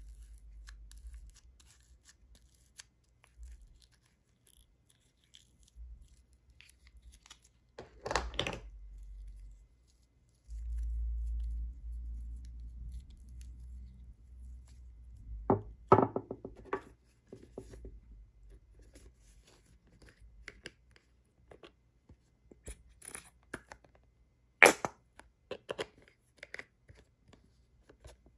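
Hands handling small makeup containers, modelling clay and packaging over a glass dish: scattered clicks and scratchy rustles. There is a low rubbing sound from about ten to thirteen seconds in, a quick cluster of clicks around sixteen seconds, and a single sharp click near twenty-five seconds.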